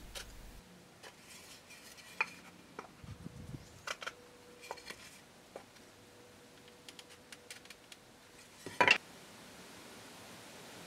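Light scattered clicks and scratches of a wooden marking gauge worked against a piece of wood, then a louder double knock of hand tools set down and picked up on the wooden bench about nine seconds in.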